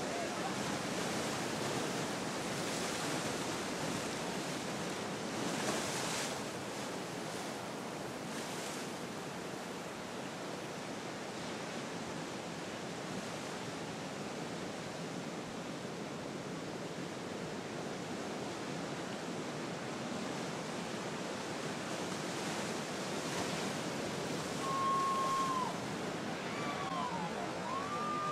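Ocean surf washing steadily, louder for a moment about six seconds in and again near the end as waves break. Near the end a few short, high whistle-like tones sound over it, some gliding down and back up.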